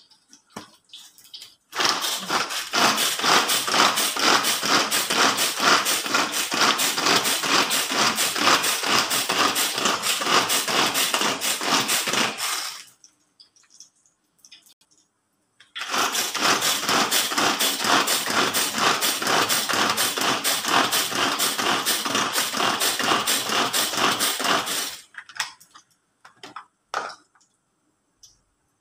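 Small kitchen food chopper whirring and rattling as its blades mince carrot, in two runs of about eleven and nine seconds with a pause between, followed by a few knocks as the bowl is opened.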